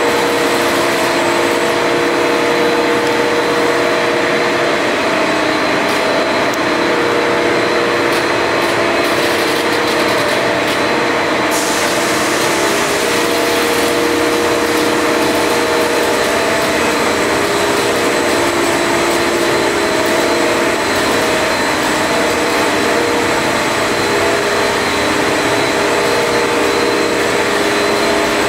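XPE foam sheet extrusion line running: a loud, steady machine whir and hiss with several steady hums underneath. The hiss turns brighter about twelve seconds in.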